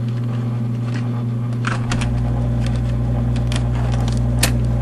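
Steady low hum of the running Singer Caramate II SP slide projector, with scattered light clicks and knocks of handling.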